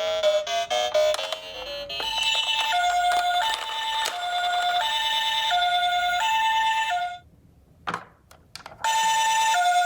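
Toy ambulance's electronic two-tone siren, a high and a low note alternating in the Japanese ambulance "pee-po" pattern. It cuts off about seven seconds in and starts again near the end after a brief gap with a couple of clicks. Before the siren starts there is a quick run of electronic chime notes with clicks.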